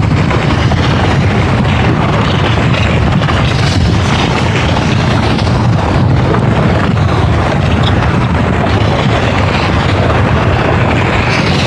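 Loud, continuous deep rumble with a hissing wash above it: a volcanic sound effect laid over molten lava, steady without any single blast standing out.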